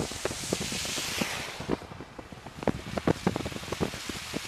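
Storm wind buffeting the microphone. A rushing hiss swells and fades over the first two seconds, followed by a run of irregular pops and knocks.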